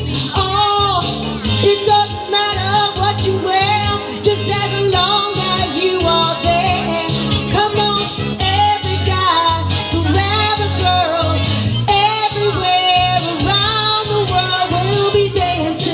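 Live pop/soul music: a woman singing lead into a microphone over electronic keyboard accompaniment with a steady bass line.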